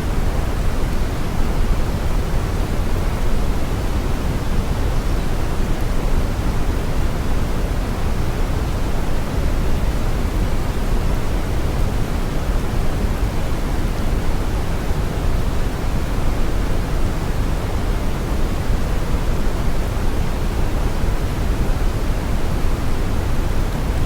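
Steady synthetic brown noise: an even, deep rushing hiss with most of its energy in the low end, unchanging throughout.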